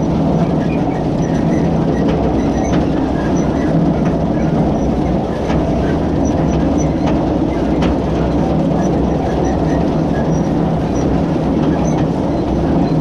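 Hay mower cutting grass, heard close up from under the machine's shield: a steady, loud mechanical rumble and rattling clatter, with a few faint ticks.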